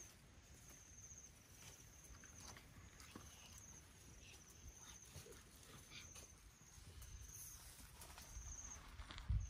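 Faint outdoor background with an insect chirping: a high, pulsing chirp about half a second long, repeated roughly once a second, over a low rumble. A dull thump comes just before the end.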